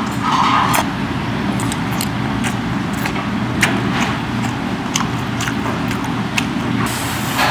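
Close chewing and mouth clicks of someone eating sushi, picked up by a clip-on mic, with scattered sharp clicks over a steady low restaurant rumble. A short hiss comes near the end.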